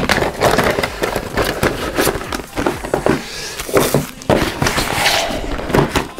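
Clear plastic packaging crinkling and small cardboard boxes being handled and set down on a wooden table: a busy run of rustles, crackles and light knocks.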